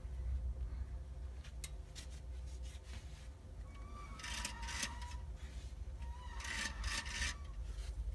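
A strange rubbing, rasping noise heard twice, for about a second each time, each starting with a short whine, over a low steady rumble. This is the odd noise reported from a vehicle with an Aisin TF-80 automatic transmission.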